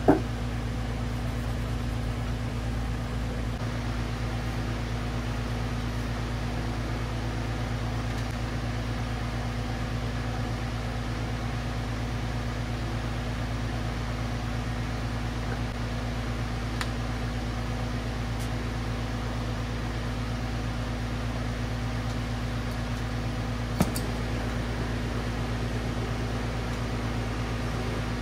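Steady low machine hum with a constant tone in it, like a fan or cooling unit running. A sharp click comes right at the start, and a smaller one about 24 seconds in.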